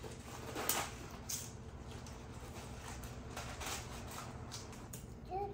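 Kitchen food-prep handling: scattered, irregular light taps and rustles over a steady low appliance hum.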